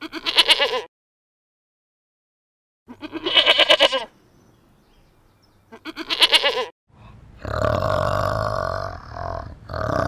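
Three short, quavering animal bleats a few seconds apart. About seven seconds in, a different, longer, deep guttural grunting call takes over, with a short break near the end.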